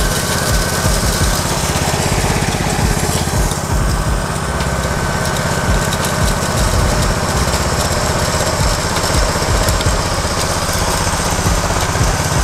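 FFC-15 disk mill grinding dried corn kernels, driven by a small petrol engine running steadily at speed.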